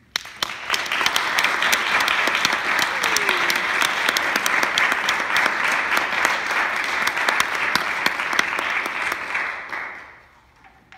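Audience applauding, the clapping starting at once, holding steady, then dying away about ten seconds in.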